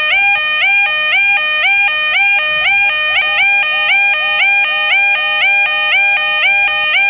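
Railway level crossing alarm sounding continuously: an electronic warning tone that switches rapidly back and forth between two notes, each note sliding up at its start. A second alarm sounds slightly out of step with the first.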